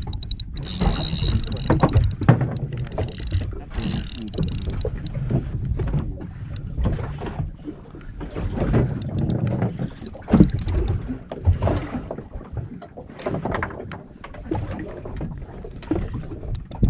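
A speedboat on the water: a deep, uneven rumble of running and water noise, broken by many irregular knocks.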